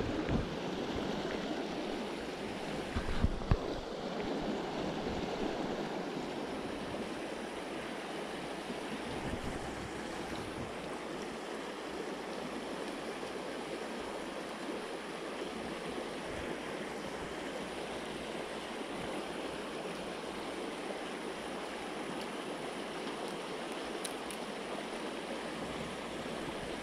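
Shallow rocky stream rushing over stones in a steady wash, with a couple of brief knocks about three seconds in.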